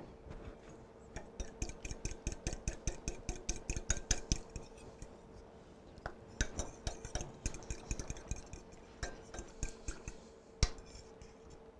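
A metal spoon stirring in a small ceramic bowl, clinking against its sides in quick strokes of about four to five a second, in two spells with a short pause about five seconds in. A single sharper clink comes near the end.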